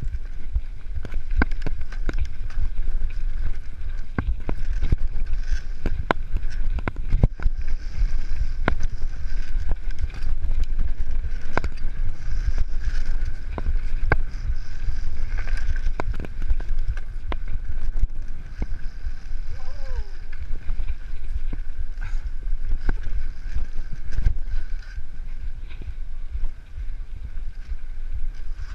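Mountain bike ridden fast over a dirt forest trail, heard from a camera on the bike or rider: wind buffeting the microphone with a constant low rumble, and frequent sharp knocks and rattles as the bike bounces over roots and bumps.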